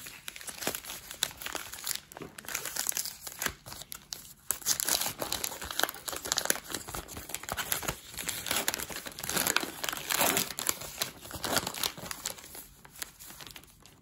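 A paper hockey card pack wrapper being torn open and crinkled by hand: a run of uneven crackling tears and rustles, loudest about a third of the way in and again in the later seconds.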